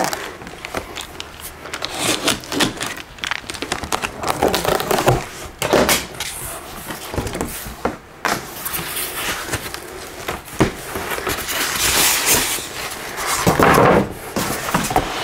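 Cardboard shipping box being opened by hand: flaps pulled open and papers handled, with scattered knocks, rustling and crackling of cardboard and paper.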